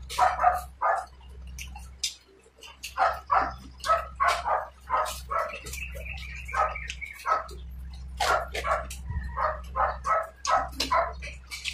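A dog barking and yipping in short repeated yaps, about two or three a second, with a few whining notes about midway, alongside sharp mouth clicks from eating.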